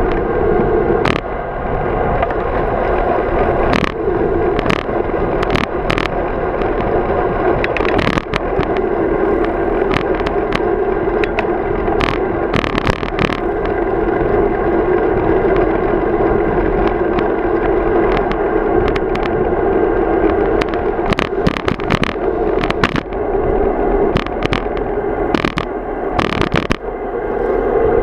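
Road bike rolling along an asphalt path, heard through a handlebar-mounted camera: a steady rush of tyre and riding noise, broken by frequent sharp clicks and knocks as the bike jolts over bumps in the pavement.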